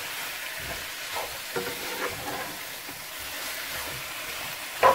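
Chicken pieces sizzling in a nonstick frying pan as they are stir-fried with curry powder, a plastic spatula stirring and scraping through them. A few short knocks, the loudest near the end.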